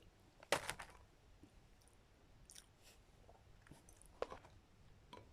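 A person eating balut, a boiled duck egg with a developing chick inside: a short crunchy bite about half a second in, then faint chewing and a few sharp clicks, one a little after four seconds.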